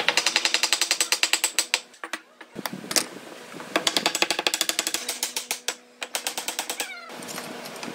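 Quick-release bar clamp ratcheting in two fast runs of sharp, even clicks, about ten a second, with a single sharp knock about three seconds in.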